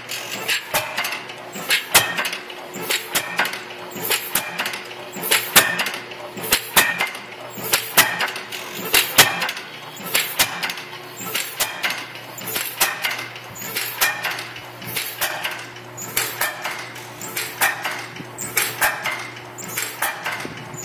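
1914 IHC Famous single-cylinder hit-and-miss engine running, a fairly regular metallic clicking and clatter at about one to two knocks a second over a steady low hum.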